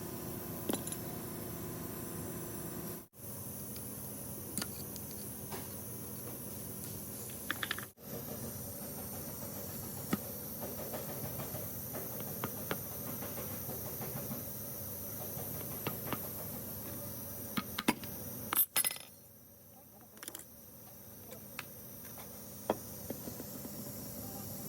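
Steady background hiss with scattered small metallic clicks and clinks of tools and parts being handled, the sound dropping out briefly twice.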